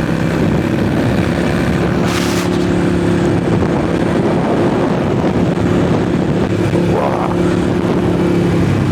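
Harley-Davidson Forty-Eight's 1200cc Evolution V-twin running at a steady cruising speed through straight shotgun Vance & Hines pipes, heard from inside the rider's helmet. There is a brief whoosh about two seconds in.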